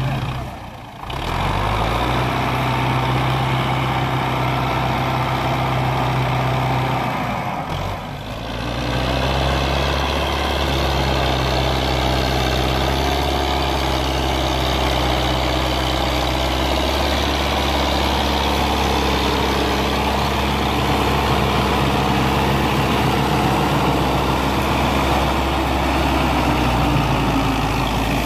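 Diesel tractor engine running hard, straining to pull a trolley heavily loaded with sugarcane, steady and low throughout. The sound briefly drops away about one second in and again about eight seconds in, and runs heavier and lower after that.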